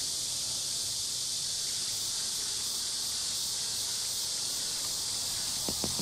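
Steady, even high-pitched drone of insects calling, with no break. Plucked guitar music comes in near the end.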